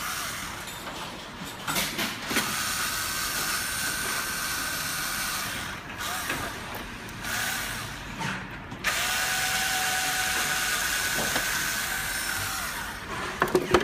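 Electric screwdriver running in long stretches with short breaks, undoing the bolts that hold the motor locker; the last stretch is louder.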